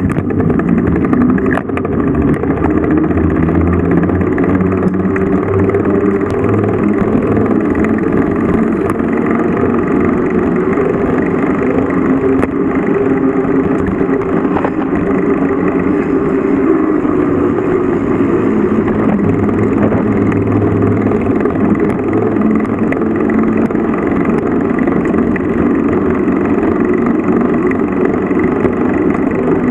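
A vehicle engine running continuously while driving, its pitch shifting a little as the throttle changes.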